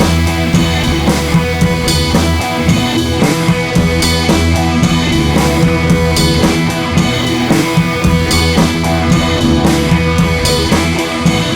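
Background music: rock-style track with a steady drum-kit beat and guitar.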